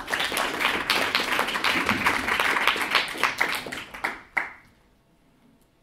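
Audience applauding, a dense patter of many hands clapping that dies away after about four seconds.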